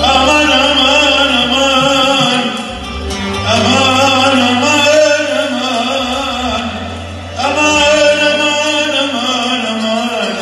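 Arabic tarab music: a man sings long, ornamented phrases over an electronic keyboard's sustained low notes, with short breaks between phrases about three and seven seconds in.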